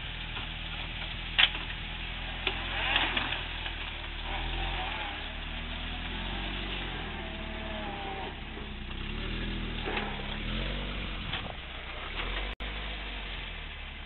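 Flat-fender Jeep's engine running and revving up and down as it crawls down off a rock ledge, with a few sharp knocks, the loudest about a second and a half in. The sound cuts out for an instant near the end.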